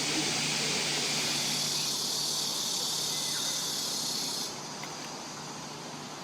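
Cicadas buzzing in a steady, high hiss that drops off suddenly about four and a half seconds in.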